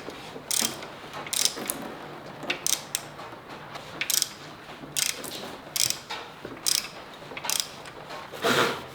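Hand ratchet wrench clicking in short bursts, roughly one burst a second, as fasteners are backed out.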